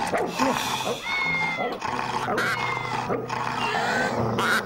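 A cartoon swan squawking: a run of loud cries that rise and fall in pitch.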